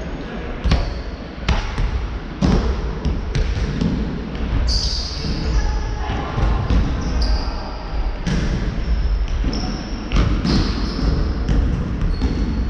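Basketball bouncing on a hardwood gym floor in irregular thuds, with short high sneaker squeaks, echoing in a large sports hall.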